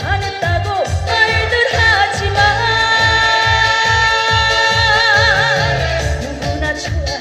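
Trot song performed live over a backing track with a steady beat, with a long note held with vibrato in the middle.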